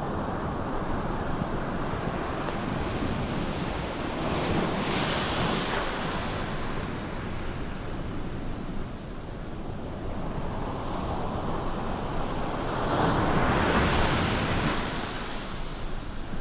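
Ocean surf: a steady wash of waves with two louder surges, about four seconds in and again around thirteen seconds in, as waves break and rush up the beach.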